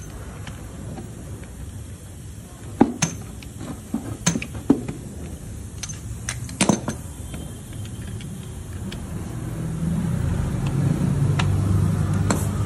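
Metal tools clinking and knocking on a motorcycle's clutch assembly: several sharp, separate metallic clinks as the clutch-holder tool and impact-wrench socket are handled on the hub. A low, steady hum comes in near the end.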